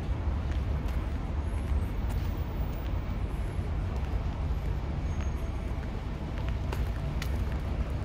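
Outdoor ambience made up of a steady low rumble, with a few faint, short, high chirps and clicks near the end.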